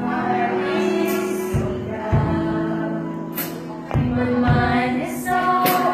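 A small group of singers singing a song together at rehearsal, backed by a live drum kit with kick drum beats and a few cymbal crashes.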